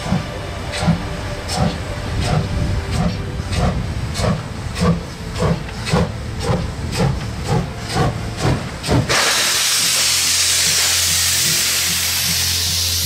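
Two-cylinder class 41 steam locomotive pulling away, its exhaust chuffs quickening from about one every three-quarters of a second to about three a second. About nine seconds in the sound cuts abruptly to a loud, steady hiss of steam over a low hum.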